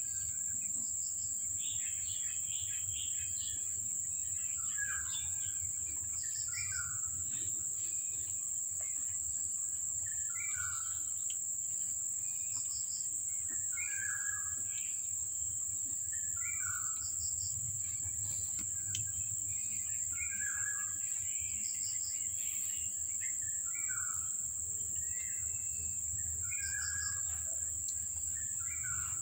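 A steady high insect drone, like crickets, with a bird calling over it: short falling notes repeated every two or three seconds, and a few higher chirps.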